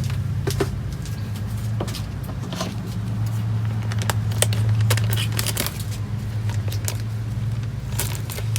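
Scissors trimming a thin plastic container, with irregular snips and crackles of the plastic, over a steady low hum.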